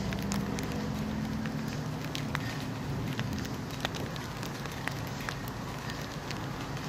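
Sparse, irregular raindrop ticks close to the microphone over a steady hiss, with a low rumble that fades out over the first few seconds.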